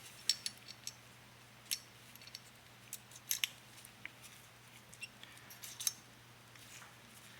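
Light metal clicks and taps, scattered and irregular, as the firing pin is slid into an AR-15 bolt carrier and seats against the steel parts.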